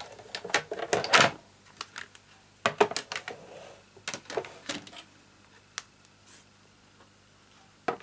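Plastic clicks and knocks from a Sizzix Big Shot die-cutting machine being cranked and its plastic cutting mat and embossing folder handled, densest in the first second or so, then scattered clicks.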